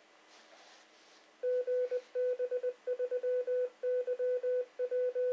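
A VHF FM repeater's Morse code callsign identification, heard through a Yaesu FT-897's speaker: one steady tone keyed in dots and dashes, starting about a second and a half in.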